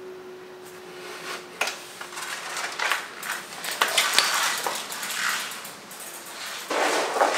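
Irregular clatter and clicks of things being handled, with a faint steady hum for about the first two seconds.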